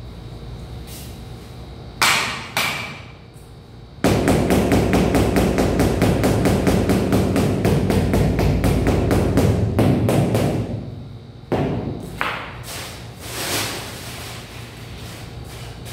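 Rubber mallet tapping a large ceramic floor tile to bed it level in the mortar: two knocks, then several seconds of rapid, even taps, then a few single knocks.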